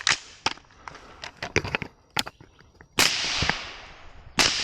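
Rifle being loaded and readied, with several light mechanical clicks and snaps, then two rifle shots about a second and a half apart, each leaving a long echoing tail.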